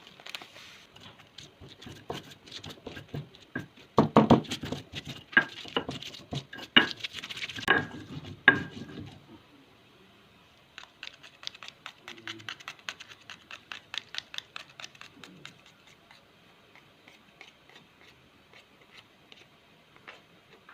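Spices being pounded and ground with a stone pestle in a mortar: a run of knocks and scrapes, loudest between about four and nine seconds in, then lighter quick taps.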